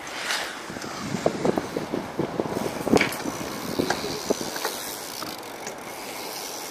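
Small wheels rolling over a concrete skatepark surface, with a run of clattering knocks, the loudest about three seconds in.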